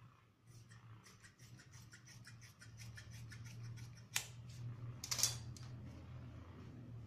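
Large tailor's shears cutting through cotton cloth in a quick run of snips, then a sharp click about four seconds in and a louder rustle of the cloth just after five seconds as the cut strip is handled.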